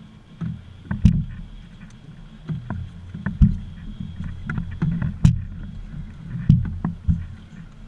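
Irregular knocks and clunks on a small aluminum fishing boat as the anglers move about and handle gear, over a steady low rumble of water and wind around the hull.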